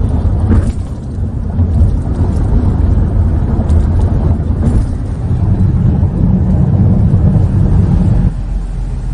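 Car cabin noise while driving: a steady low rumble of engine and road, dropping somewhat near the end.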